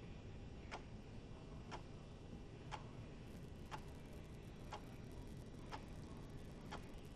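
Faint, steady ticking, about one tick a second, over a low background hum.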